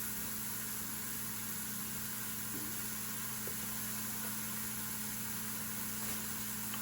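Steady low electrical hum with an even faint hiss, unchanging throughout.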